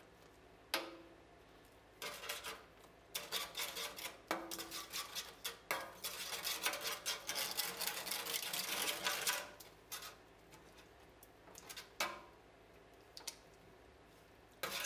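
Bursts of crackling, popping and clicking from a simmering dye bath in a stainless steel pan as citric acid is spooned in and the wet yarn is pressed down with a gloved hand. The longest stretch of crackling comes in the middle.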